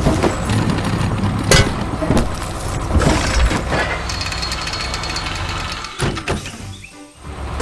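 Heavy construction machine's engine running with a steady low rumble and scattered clanking knocks. The sound dips about six seconds in and almost stops for a moment near the end before starting up again.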